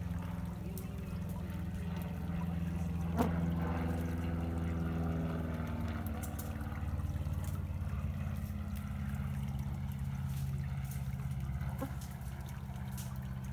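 Shallow, clear stream trickling over pebbles in riffles. A steady low rumble runs underneath, and there is one sharp tap about three seconds in.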